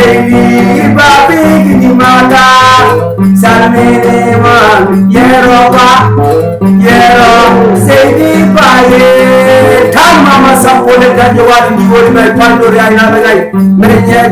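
A man singing to his own acoustic guitar accompaniment, the guitar repeating low bass notes under the melody.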